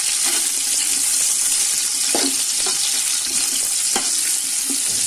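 Freshly added sliced onions frying in hot oil, a steady high sizzle, with a few faint knocks.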